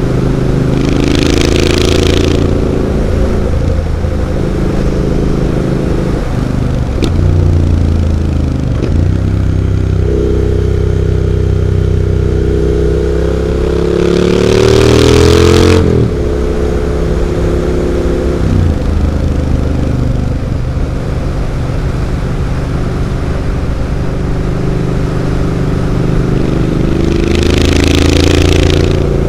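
Triumph Street Scrambler 900's parallel-twin engine through aftermarket Zard exhaust pipes while riding: the note climbs under throttle and drops back several times. The loudest and highest climb comes about halfway through, topped by a burst of hiss.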